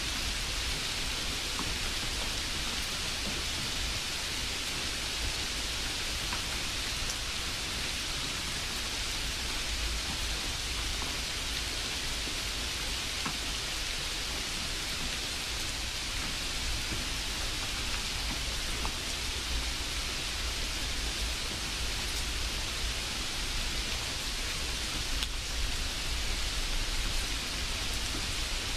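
Steady, even hiss with a low rumble underneath, unchanging throughout.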